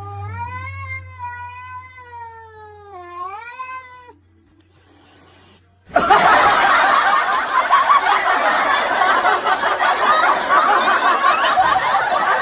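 A cat's long, drawn-out meow, its pitch rising and falling, lasting about four seconds. After a short pause, a loud, dense, continuous noise starts abruptly and carries on to the end.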